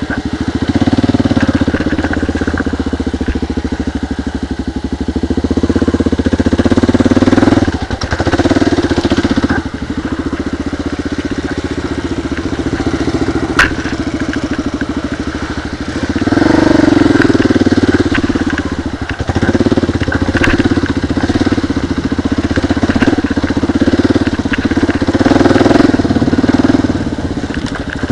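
Dual-sport motorcycle engine running at low trail speed on rough ground, its revs rising and dropping back several times as the throttle is worked. A single sharp knock comes about halfway through.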